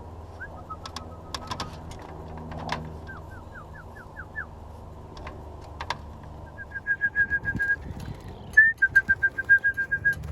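Birds at a racing-pigeon loft. A few short rising chirps come in the first half, then a rapid high trill of short chirps, about eight a second, starts twice in the second half and is the loudest sound.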